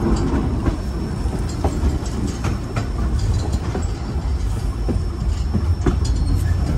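Narrow-gauge White Pass & Yukon Route passenger train rolling along the track: a steady low rumble of the cars with irregular clicks and knocks from the wheels on the rails.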